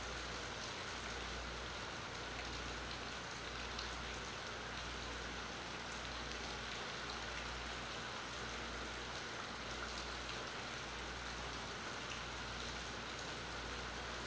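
Steady rain falling, an even hiss with scattered small drop ticks, picked up by a phone's onboard microphone, over a low rumble that swells and dips.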